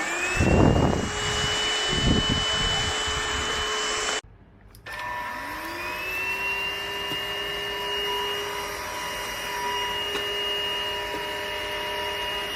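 Dibea H008 cordless stick vacuum's motor switching on and spinning up to a steady high whine. The sound breaks off abruptly about four seconds in, then the motor starts again and spins up to the same steady whine. A few low rumbles come in the first two seconds.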